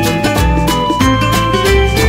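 Background music: an upbeat track with plucked guitar, a bass line and a steady beat.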